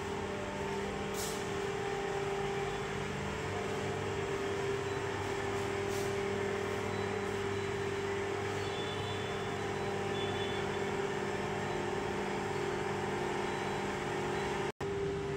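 A steady mechanical hum with one constant tone over a background of noise, cut off for a split second near the end.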